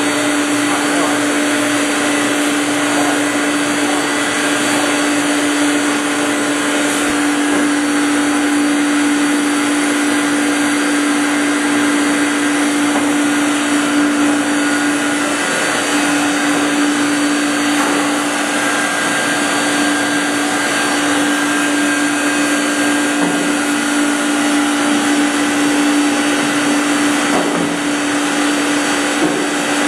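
Meat-processing machinery running steadily: a loud, unchanging motor hum over a rushing noise.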